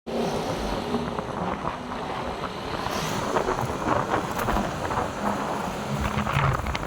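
Road traffic noise, a steady rumble with wind buffeting the microphone.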